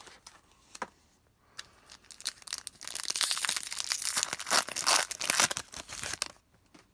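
A foil trading card pack being torn open and its wrapper crinkled: a dense crackling that starts about three seconds in and lasts about three seconds, after a few light rustles and clicks.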